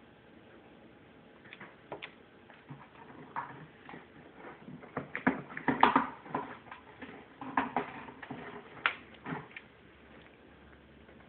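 African grey parrot working at a cardboard mailing box with its beak and feet on a glass tabletop: a run of irregular taps, knocks and scrapes, busiest and loudest around the middle.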